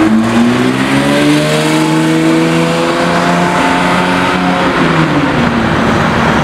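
Porsche 992 GT3's naturally aspirated flat-six accelerating away. Its note rises in pitch over the first second or two, then holds at a level with a few small steps.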